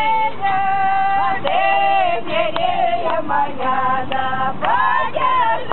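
A high voice singing, holding long notes and sliding up and down between them.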